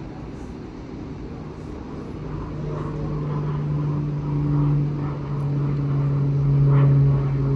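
A tram approaching: a steady low electric hum comes in about two seconds in and grows louder.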